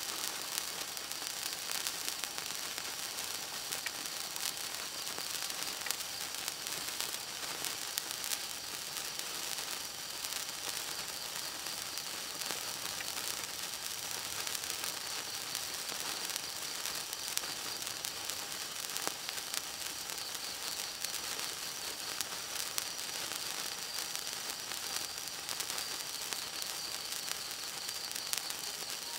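A 36-inch gold wire sparkler burning: a steady hiss with scattered small crackles.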